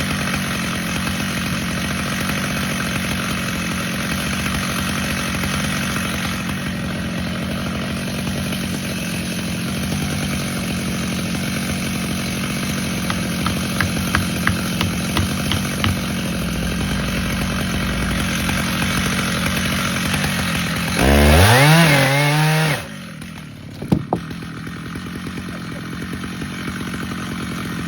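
Stihl MS 881 two-stroke chainsaw running steadily under load while cutting through a large maple log. About 21 seconds in it revs up sharply for under two seconds, then drops off abruptly to a lower running sound, with a sharp knock a second later.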